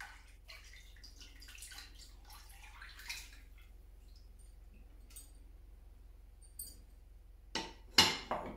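Coconut milk poured from a ceramic bowl into a pan of milk, trickling and splashing for the first three seconds or so. Near the end, ceramic bowls knock together several times as the empty bowl is set down into another; these clinks are the loudest sounds.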